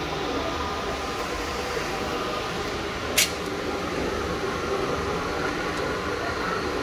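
Stainless-steel vertical mixer running, a steady mechanical drone from its drive, with one sharp click about three seconds in.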